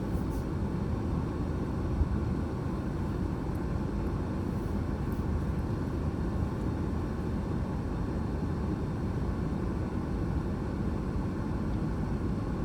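Car engine running with a steady low rumble, heard from inside the cabin as the car rolls slowly into the shop bay.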